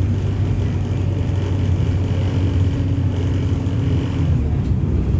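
Wright StreetLite DF single-deck bus's diesel engine running steadily, heard from inside the passenger saloon; the low hum drops away about four seconds in, and a short click sounds near the end.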